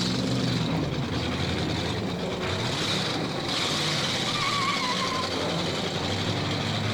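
Stock car engines running on a short track, steady and loud, with a short wavering squeal about four seconds in.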